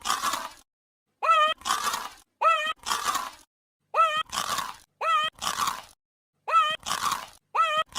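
Cartoon cereal-eating sound effect: a short high vocal blip, then a crisp crunch of a bite of Cinnamon Toast Crunch. The pair repeats about six times at slightly uneven intervals, with silence between.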